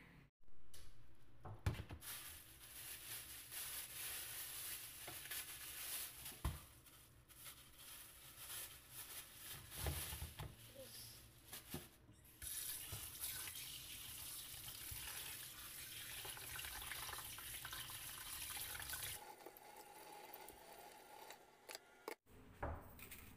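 Tap water running into a stainless-steel sink while whole carp are rinsed by hand in a plastic bowl, with scattered knocks and splashes from the handling. The running stops near the end.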